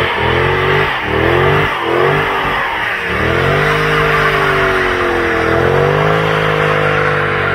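Mercedes-Benz CLS 63 AMG's naturally aspirated 6.2-litre V8 revving hard during a burnout. For the first three seconds the engine note surges up and down about twice a second, then it holds at high revs with slow dips while the spinning rear tyres hiss and squeal.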